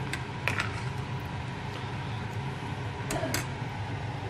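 A utensil stirring thick soup in a stainless steel pot, with a few light clicks of the utensil against the pot, twice near the start and a quick pair later, over a steady low hum.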